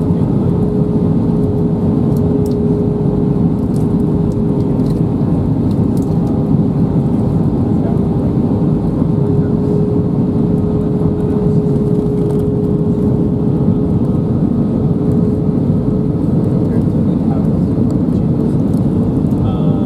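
Airbus A320 cabin noise on approach: a steady roar of engines and airflow, with a thin steady hum riding on it.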